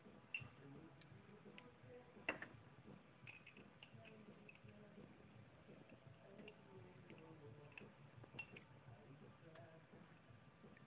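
Faint, scattered clicks and ticks of small metal hand tools and parts being handled, with one sharper click about two seconds in.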